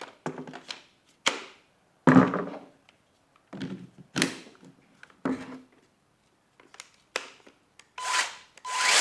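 Two Makita 18 V batteries being slid and clicked into a DUC302Z cordless top handle chainsaw: a run of separate plastic knocks and clicks as the saw and batteries are handled. Near the end, two louder, longer rushing bursts.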